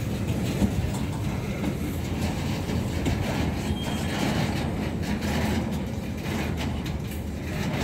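Freight train of loaded gondola cars rolling past: a steady rumble of steel wheels on the rails with clacking as the wheels cross rail joints.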